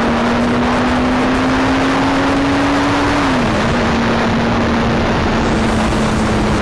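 Motorcycle riding at speed, with loud wind rush on the microphone over the engine's steady note. The note climbs slowly, then drops quickly a little over three seconds in and holds lower.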